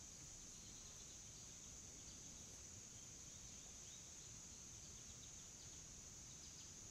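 Faint outdoor ambience: a steady high-pitched insect trill with a few faint short chirps scattered over it.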